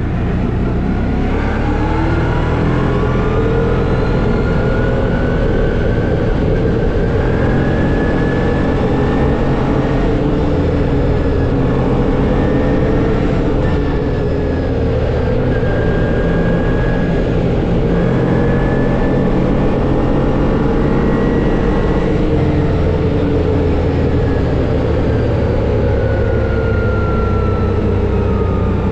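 CF Moto 850XC ATV's V-twin engine running under way, its pitch rising and falling as the throttle and speed change.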